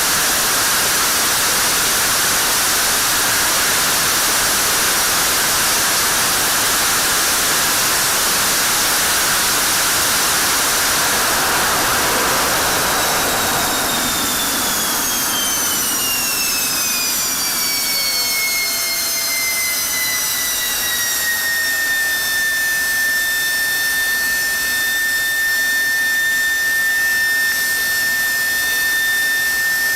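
F-16's afterburning turbofan engine running at full afterburner in a hush house: a loud, even roar. About halfway through, the roar drops away as the engine is throttled back, and a turbine whine falls in pitch and settles into a steady high tone.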